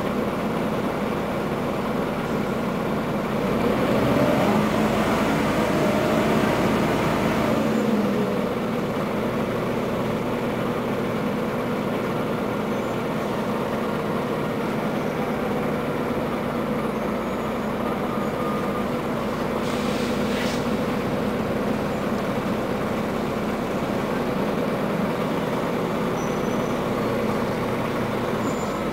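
Scania N94UA articulated city bus's diesel engine heard from inside the passenger cabin as it drives. The engine note rises and grows louder for a few seconds, then drops sharply about eight seconds in and runs on steadily. A short hiss comes about twenty seconds in.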